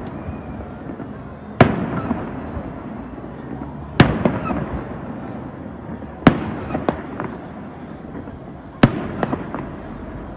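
Aerial firework shells bursting: four loud bangs about two and a half seconds apart, each followed by a few smaller pops and a fading echo.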